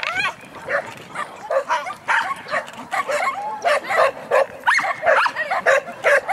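A dog barking over and over, short sharp barks about three a second.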